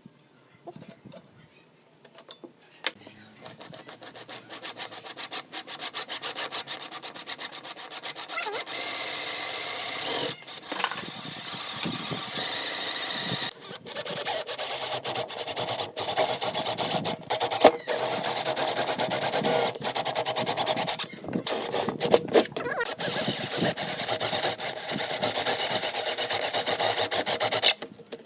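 Wood being worked by a tool: a continuous scraping made of many rapid strokes that starts about three seconds in, with a faint high whine partway through.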